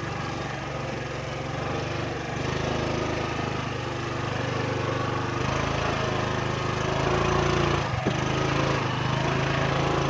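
Motorbike engine running steadily while riding, its note getting a little louder about halfway through.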